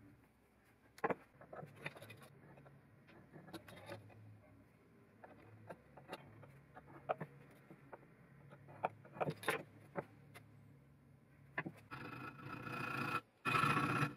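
A carbon-steel knife blade and steel ruler clinking and tapping on a wooden workbench as the blade is handled and scribed. About twelve seconds in, a hand file starts scraping across the blade clamped in a vise, two strokes with a brief pause between.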